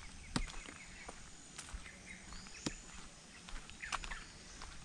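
Rural outdoor ambience: birds chirping now and then, a steady high-pitched whine, and sharp ticks about a second apart.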